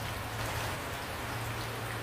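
Steady rain falling, an even hiss with scattered drop ticks, over a steady low hum.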